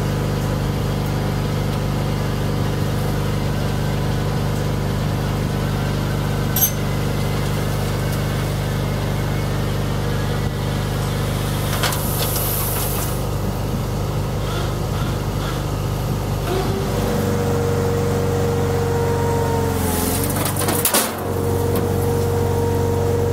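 Garden tractor engine running steadily while towing and dumping a loaded cart. About two-thirds of the way through, the engine note shifts and a higher steady whine joins it. A brief dip and clatter come near the end.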